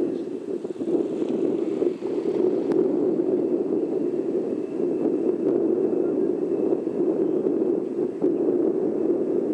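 Boeing 787-8 Dreamliner's jet engines on final approach: a steady, rough rumble with a faint, steady high whine above it.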